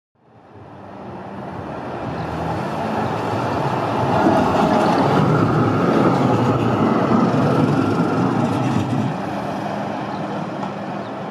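Duewag SL79 articulated tram running past on street track: wheel-on-rail rumble with a steady motor hum. It grows louder as it approaches, is loudest as it passes close by from about four to nine seconds in, then fades as it pulls away.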